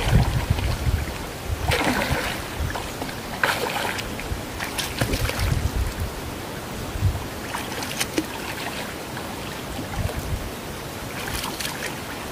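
Water splashing in about five short bursts a few seconds apart as a hooked catfish thrashes at the surface. Wind rumbles on the microphone near the start.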